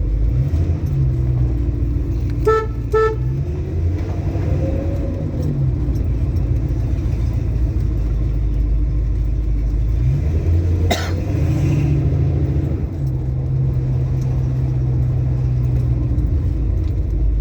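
Ford Mustang Mach 1 engine running steadily while driving, a low drone whose pitch steps up and down a few times. Two short car-horn toots about half a second apart come in about two and a half seconds in, and a single sharp knock near the eleven-second mark.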